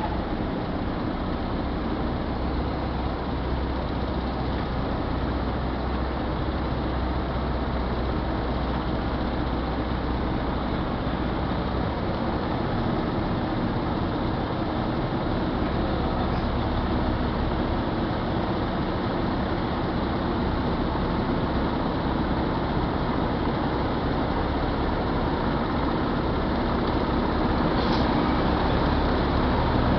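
Heavy diesel engine running steadily with a low hum, growing slightly louder near the end.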